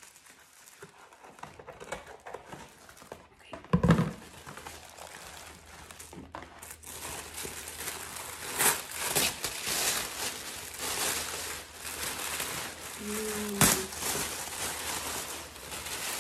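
Plastic wrapping and tissue paper crinkling and rustling as a handbag is unwrapped by hand, louder in the second half. There is a dull thump about four seconds in and a sharp click near the end.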